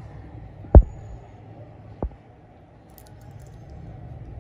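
Handling noise as a metal-bracelet wristwatch is turned over in the hand: three short sharp knocks, the first loudest and the last at the very end, over a low steady hum.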